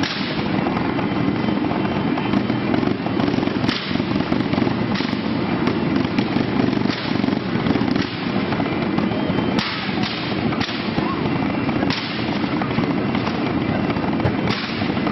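Propane flame effects firing in sudden bursts, about seven at uneven intervals, over a steady loud background din.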